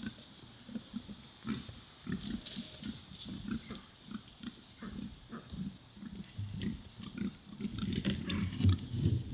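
Pigs grunting: a run of short, low grunts a few times a second, getting louder and busier near the end.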